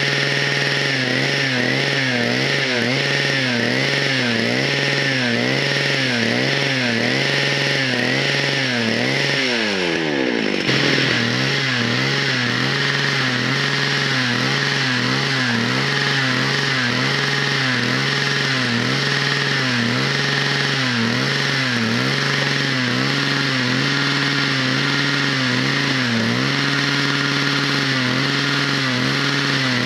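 A 111cc two-stroke chainsaw power head driving a portable winch, running steadily at speed with its pitch wavering regularly about once a second. The sound changes abruptly about ten seconds in, then runs on as before.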